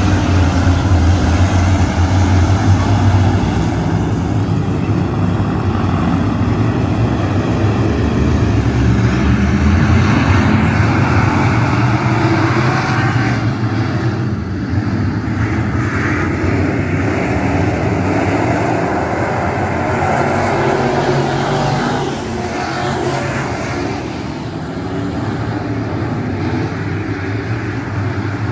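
A pack of dirt-track race cars running laps together, their engines at high revs. The sound swells and eases as the field goes around the oval.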